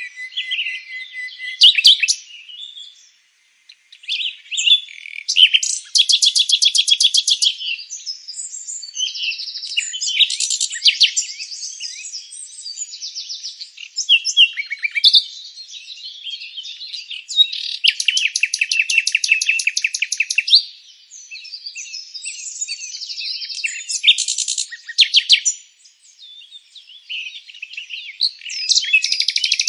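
Songbirds chirping and singing in overlapping phrases, with three long trills of rapid repeated notes.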